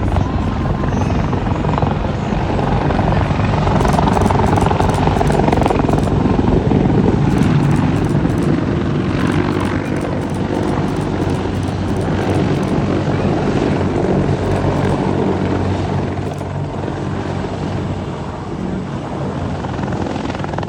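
Military rotorcraft at an airshow, its rotors beating steadily under engine whine. It swells louder about four to eight seconds in and eases off toward the end.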